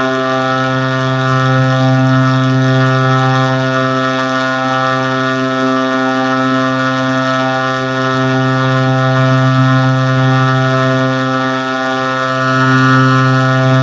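A steady, loud drone on one held low pitch with many overtones, unchanging apart from a brief dip about twelve seconds in.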